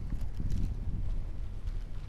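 Wind buffeting a microphone on a road bike riding downhill, a gusty low rumble with scattered light clicks and ticks from the bike.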